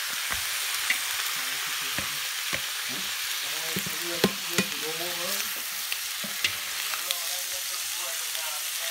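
Eel pieces stir-frying in hot oil in a wok, sizzling steadily, with the spatula clicking and scraping against the pan every so often.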